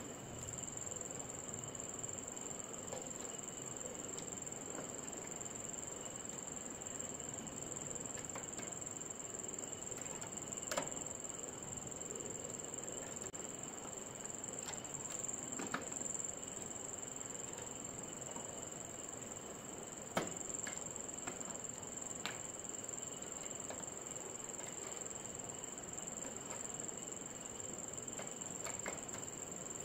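A steady high whine over a faint hiss, with a few light metal clicks as a screwdriver works a screw on the head of a vintage animal hair clipper clamped in a vise.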